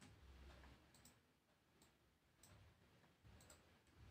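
Faint clicks of a computer mouse, about one every second, as anchor points are clicked in one by one.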